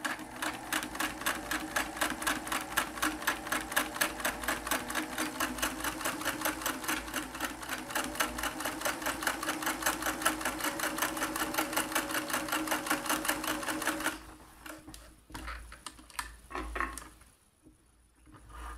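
Singer 328K sewing machine sewing a straight stitch with twin needles through two layers of cotton muslin: a steady motor hum under a fast, even clatter of needle strokes. It stops about 14 seconds in, followed by a few light clicks.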